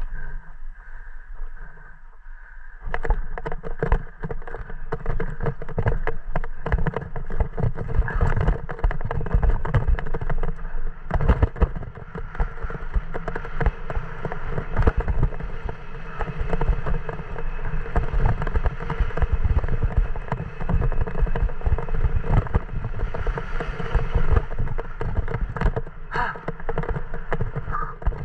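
Mountain bike descending a rough dirt trail: a dense, irregular rattle and clatter of the frame and parts over bumps and rocks, with rushing wind noise on the camera microphone. The rattling starts about three seconds in, as the descent gets going.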